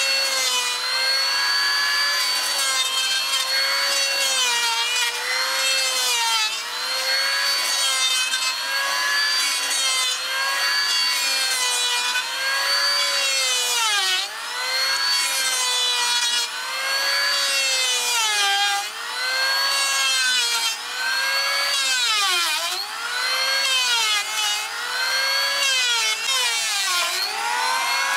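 Corded electric hand planer running continuously as it shaves rough timber beams. Its high whine dips in pitch every second or two as the blades take load in the wood, then recovers.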